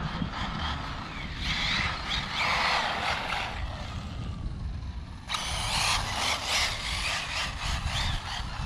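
Electric-converted 1/8-scale Losi 8IGHT 4.0 RC buggy running on a 4S battery across asphalt: its motor whines up and down in pitch as it speeds up and slows. A louder, rougher rush of noise starts suddenly about five seconds in.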